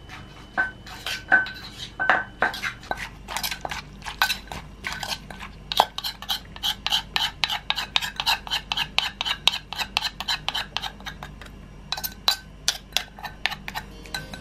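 Wooden pestle and metal spoon knocking and clinking in a clay mortar as spicy Thai cucumber salad is pounded and turned: a run of sharp taps that settles into about three a second in the middle, with a short pause before a few more near the end.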